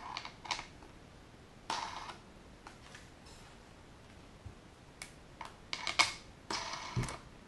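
Short plastic clicks and scrapes as propellers are screwed down by hand onto the motors of a DJI Phantom 2 Vision+ quadcopter, in a few scattered bursts that come thickest near the end.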